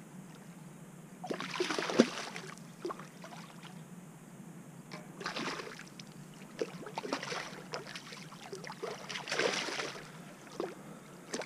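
A hooked fish thrashing at the surface in the shallows, splashing water in several short bursts separated by quieter gaps.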